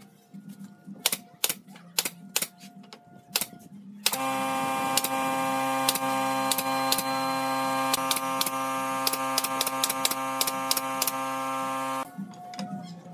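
Pneumatic brad nailer driving nails into wooden slats: sharp shots a few times a second in an irregular run. About four seconds in a loud steady hum of several tones starts under the shots and cuts off abruptly near the end.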